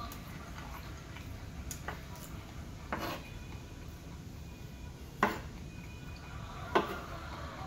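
Metal spoon scraping and clicking against a wooden cutting board while scooping fried rice: a few sharp clicks, the two loudest in the second half.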